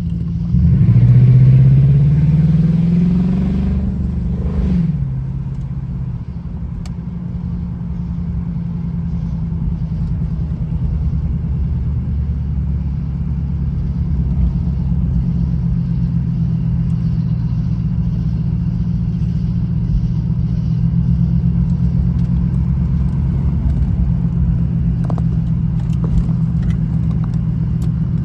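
Jaguar XJR's supercharged V8 pulling under acceleration, its note rising for about three seconds. It then drops sharply and settles into a steady drone while the car cruises.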